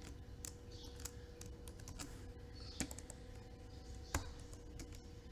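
Computer keyboard being typed on: a few scattered, irregular key clicks, with one louder click about four seconds in.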